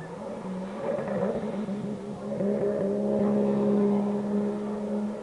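Jet ski engine revving hard in a spray-throwing turn, its pitch wavering at first and then holding a steady high note from about two seconds in, growing louder.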